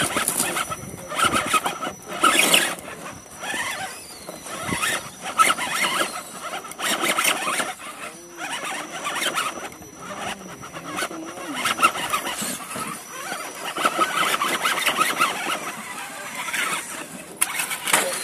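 Electric RC rock crawler's motor and geartrain whining in short, irregular bursts of throttle as its tyres scrabble and grind on crumbly sandstone, with a thin steady high tone underneath. Near the end there is a brief clatter as the crawler tumbles off the rock.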